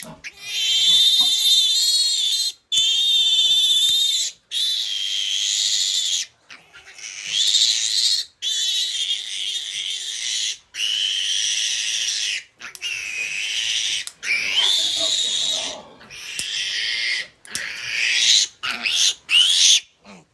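Newborn piglet squealing in distress: about a dozen long, shrill screams of one to two seconds each, with brief breaths between. It is being held for teeth clipping and tail docking.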